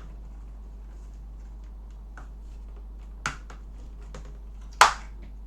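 A few sharp plastic clicks and snaps from a laptop's plastic case being worked open with pry tools. The loudest snap comes near the end, after a smaller one a second and a half earlier, over a low steady hum.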